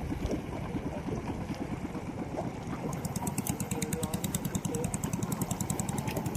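Small fishing boat's engine running steadily with a fast, even pulse. A rapid high ticking joins about halfway in.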